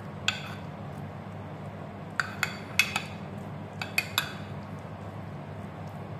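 Metal spoon clinking against a stainless steel mixing bowl and baking dish while scooping thick cheesy pasta: about eight sharp clinks with a short ring, most of them between two and four and a half seconds in, over a steady low hum.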